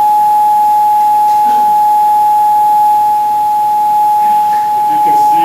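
Loudspeaker, fed by a signal generator and amplifier, sounding a single loud, steady pure tone at about 840 Hz. The tone is set to the resonant frequency of a glass to drive it into vibration.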